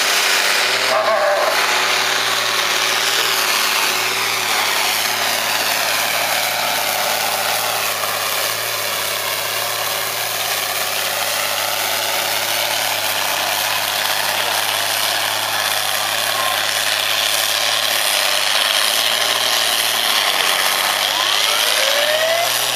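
Tuned Fendt 926 tractor's diesel engine running flat out under load as it drags a braking sled down the pulling track. The pitch wavers up and down as the revs rise and fall.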